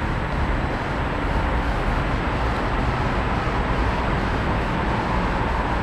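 Steady city traffic noise: an even low rumble with no single event standing out.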